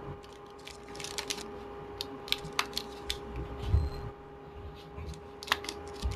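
Light clicks and rustles of a power cord and its packaging being handled, with a couple of soft thumps, over a steady faint hum.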